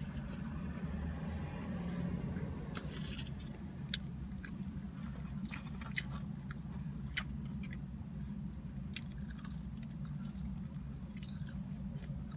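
A person chewing a mouthful of pretzel-bun bacon cheeseburger close to the microphone, with scattered short wet mouth clicks, over a steady low hum.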